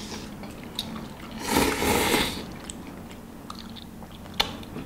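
A person slurping up a mouthful of instant ramyeon noodles: one slurp just under a second long about a second and a half in, then chewing, with a single sharp click near the end.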